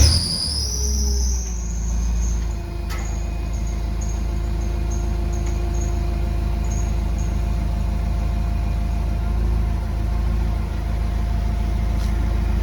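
A large vehicle engine catches at the start and settles into a steady idle, a deep, even rumble with a faint steady hum above it.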